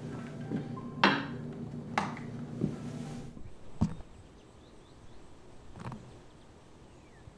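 A few footsteps on a hard floor, single knocks spaced about half a second to a second apart, over a low steady room hum. About three and a half seconds in, the hum cuts off; a couple of soft steps and faint, short falling bird chirps follow.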